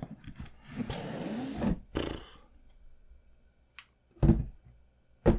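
A cardboard board-game box being opened: a rustling, scraping stretch as the lid and contents are handled, then two loud low thumps about a second apart near the end as pieces are set down.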